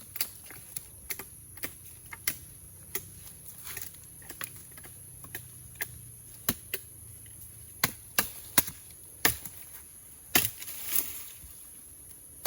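Wood being chopped with a blade: irregular sharp chops, roughly one or two a second, the strongest in the second half, over a steady high-pitched drone.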